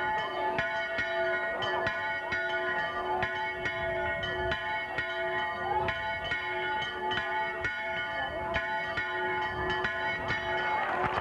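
Tuned bells pealing: struck over and over, several times a second in an irregular rhythm, each tone ringing on under the next strokes.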